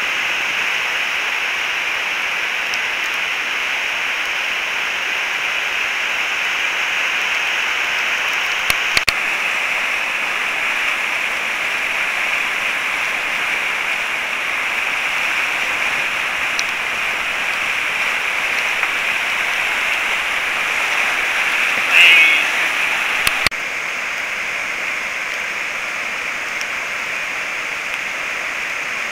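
Steady roar of whitewater rapids and a waterfall on a river running high after rain, a harsh even hiss. A few faint clicks and a short louder sound break in briefly, then the roar drops slightly in level near the end.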